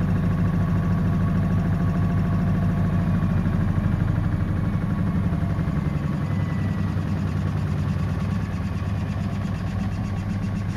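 Samsung front-loading washing machine running in its prewash spin with an unbalanced load: a steady low machine hum with a fast flutter, easing a little about six seconds in.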